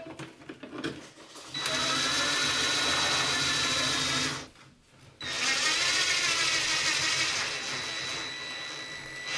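Cordless drill/driver driving screws into a wall cover plate: two runs of about three seconds each, separated by a short pause, with a steady motor whine.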